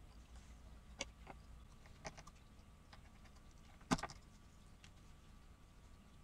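Utility knife whittling a small piece of maple: quiet, with a few sharp clicks as the blade cuts, the loudest about four seconds in.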